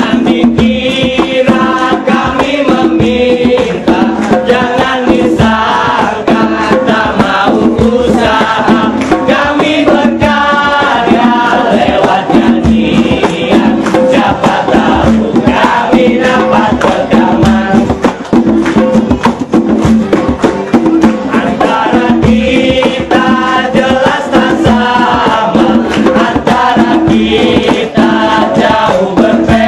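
A song sung in Indonesian by a group of street buskers, with acoustic guitar and a fast, steady rattle of hand percussion.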